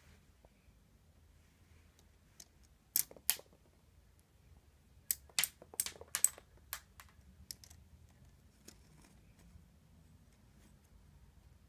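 Sharp plastic clicks of a Lego Bionicle stud blaster firing round studs: two clicks about three seconds in, then a quick run of clicks from about five to seven seconds in, and a few fainter ones after.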